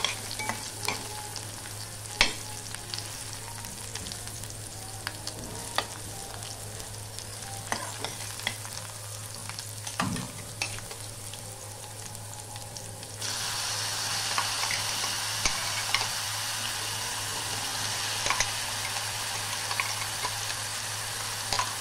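Peeled okra pods, okra seeds and cumin frying in hot oil in a kadhai, stirred with a spatula that scrapes and taps the pan now and then. About two-thirds of the way through the sizzle turns louder and hissier, with the wet garlic, green chilli and coconut paste in the pan.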